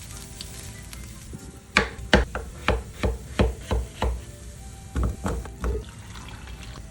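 A knife chopping on a cutting board: two quick runs of sharp strokes, about eight and then four.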